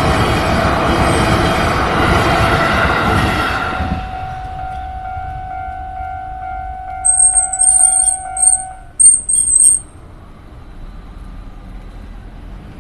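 Train passing over a level crossing; its loud running noise dies away about four seconds in and leaves a steady whine. Near the middle come several sharp, very high-pitched squeals, the loudest sound here, and then a quieter road-traffic background.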